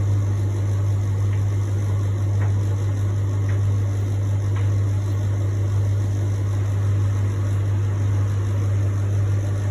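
Beko household appliance running with a loud, steady low hum over a constant whirring, with a few faint ticks about a second apart in the first half: a noise the owner finds strange and takes for a fault.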